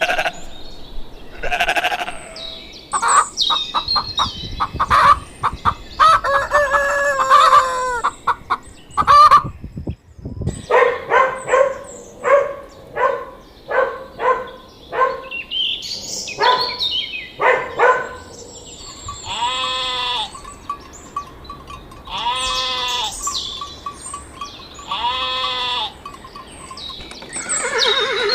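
Chickens clucking in quick, repeated bursts, then a rooster crowing three times at even intervals in the second half.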